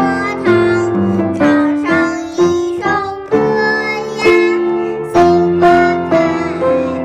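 A child singing a lively song with piano accompaniment, the piano chords struck in a steady beat under the held sung notes.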